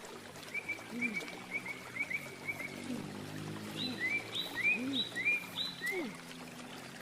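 A bird calling: a run of quick short chirps for the first few seconds, then a series of sharper two-note calls about twice a second. Brief low, pitched croaking sounds come and go underneath.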